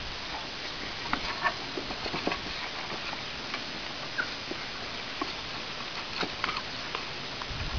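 Bavarian mountain hound puppies' paws tapping and scrabbling on wooden planks, with scattered light knocks of the boards and a brief high squeak near the middle, over a steady hiss.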